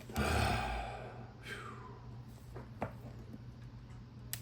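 A heavy sigh close to the microphone, followed by a second falling breath, with a couple of small sharp clicks from the combination lock being worked.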